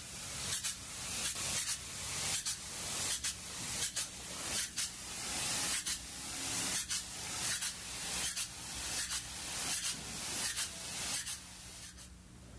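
High-pressure polyurea spray gun spraying at about 3000 psi: a steady high hiss of atomised coating, broken by short regular dips a little more than once a second, tailing off near the end.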